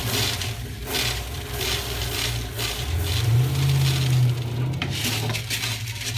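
Washed aquarium gravel poured from a plastic colander into an empty glass tank, the small stones rattling in a steady rush onto the glass bottom and onto each other. A low steady hum runs underneath and is strongest midway.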